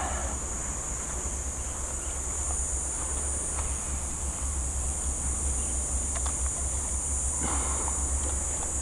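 Steady, high-pitched chirring of an insect chorus, with a low rumble underneath and a few faint clicks.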